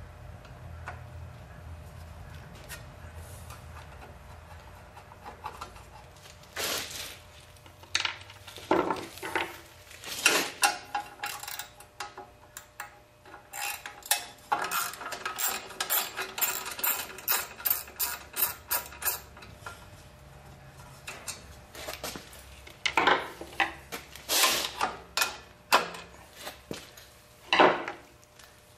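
Hand tools and metal parts clinking and clicking, scattered knocks and scrapes, with a run of quick, evenly spaced clicks about halfway through.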